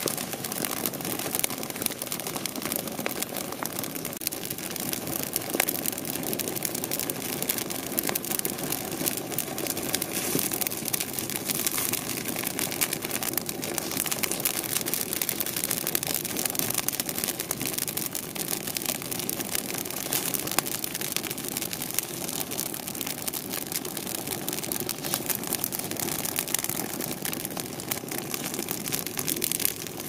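Open wood fire of twigs and conifer branches burning briskly: dense, irregular crackling and popping over a steady rush of flame.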